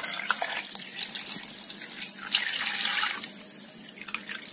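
Milk poured in a heavy stream into a pot of cooked rice, the sound of liquid pouring and splashing into the pot. The pour thins to a thin stream and grows softer about three seconds in.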